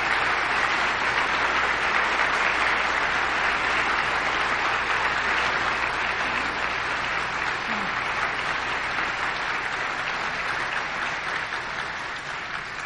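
Audience applauding: a long, steady round of clapping that slowly tapers off in the second half.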